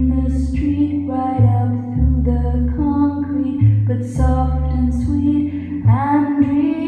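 A song with a singing voice over bass and guitar, played through a vintage vacuum-tube amplifier. The bass changes note about once a second, and the voice slides up near the end.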